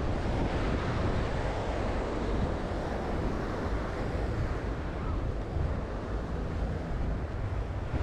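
Wind buffeting the microphone as a heavy low rumble, over the steady wash of small surf breaking on a sandy beach.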